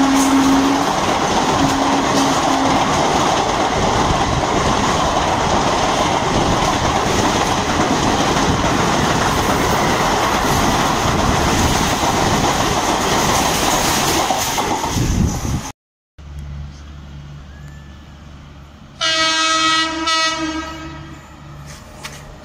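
An Indian Railways electric locomotive's horn ends a long blast about a second in and gives a short one soon after, while the express's passenger coaches rush past close by with a steady noise of wheels on rail for about fifteen seconds. After a sudden cut, a second electric-hauled express approaches with a low hum and sounds its horn for about two seconds near the end.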